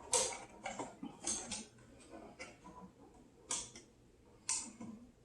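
Irregular light clicks and ticks of a screwdriver working a wall light switch's terminal screws and the wires being pulled free.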